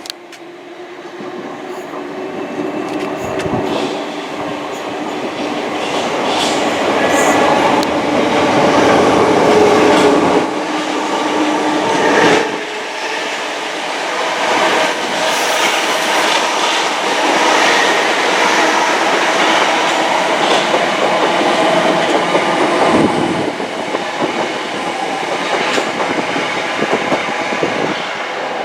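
Class 456 electric multiple unit passing on the line below, growing louder over the first ten seconds and staying loud, with steady motor tones and repeated wheel clicks over the rail joints.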